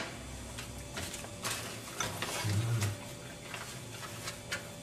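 Faint scattered clicks and light knocks of kitchen things being handled, with a brief low hum about two and a half seconds in.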